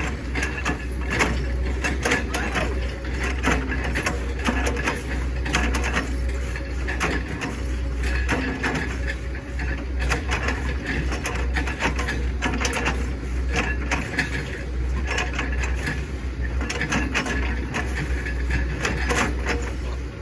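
Hitachi ZX110 swamp excavator's diesel engine running steadily, with repeated sharp cracking and crunching as the bucket chops up an oil palm trunk.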